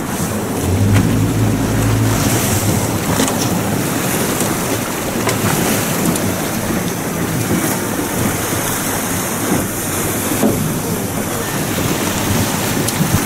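Outboard motor running as an aluminium skiff moves through choppy sea, with wind buffeting the microphone and water rushing and splashing along the hull. A low hum stands out for the first couple of seconds.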